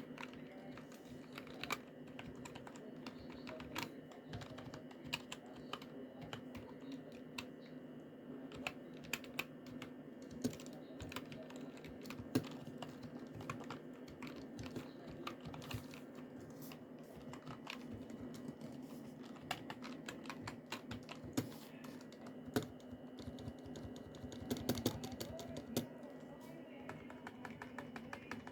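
Keys of a Langtu membrane keyboard, lubed with baby oil and with paper towel stuffed into the stabilizer holes to dampen it, being pressed one at a time across the board, giving soft separate keystrokes, then a quick run of fast typing near the end.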